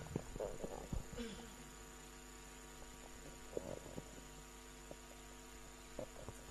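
Pause in an adhan, the Islamic call to prayer: the muezzin's last phrase dies away in faint echoes over the first second or so, leaving a faint steady hum with a few scattered faint sounds.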